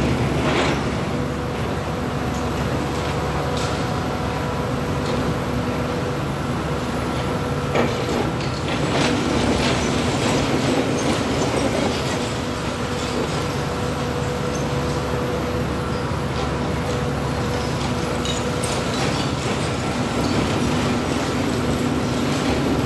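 Hitachi Zaxis 350 high-reach demolition excavator working. Its diesel engine and hydraulics run steadily under a few constant whining tones, while its Trevibenne primary crusher breaks up concrete, with scattered sharp cracks and knocks of breaking concrete and falling debris.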